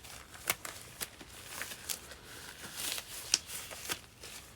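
Scattered small clicks and taps from handling the greasy parts of a disassembled Kurt milling machine vise, with a brief scratchy scraping a little before three seconds in. The sharpest tap comes about three seconds in.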